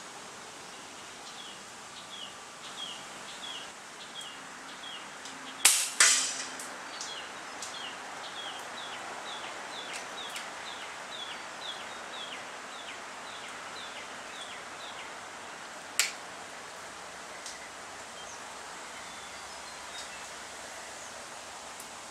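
A .22 FX Bobcat PCP air rifle fires: a sharp crack about six seconds in, followed a moment later by a second loud hit, then a smaller single crack about ten seconds later. A bird calls throughout the first part, short falling notes about twice a second.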